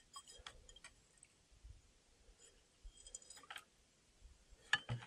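Faint light clinks and ticks, some with a brief metallic ring, in two short clusters as small hard objects are handled, then a sharper knock near the end.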